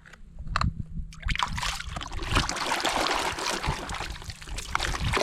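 Water splashing and trickling as a toy is washed by hand, after a few light knocks; the splashing starts about a second in and keeps going.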